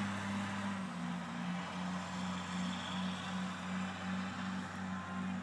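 A steady low engine hum that pulses about three times a second.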